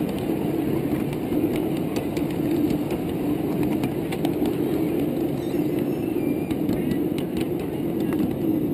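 Ride-on miniature railway train running on its track: a steady rumble of the wheels on the rails, with occasional clicks.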